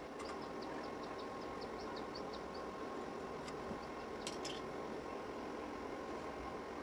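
Faint steady background hum and hiss, with a quick run of light high-pitched ticks in the first couple of seconds and a few scattered clicks around the middle.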